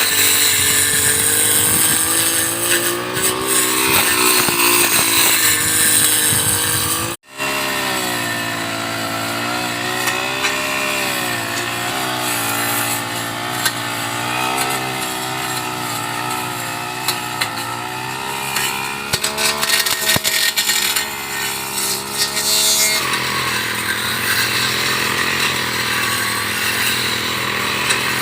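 Two-stroke brush cutter (grass-cutting machine) engine running, its pitch rising and falling as the throttle changes. A brief dropout about seven seconds in.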